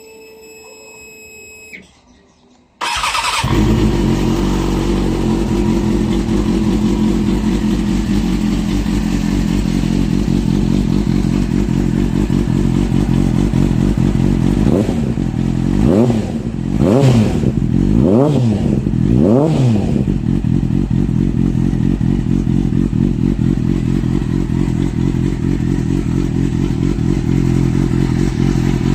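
Triumph Speed Four motorcycle's 600 cc inline-four engine starting up about three seconds in, after a brief steady whine, then idling. Around the middle there are several quick throttle blips, each rising and falling in pitch, before it settles back to a steady idle.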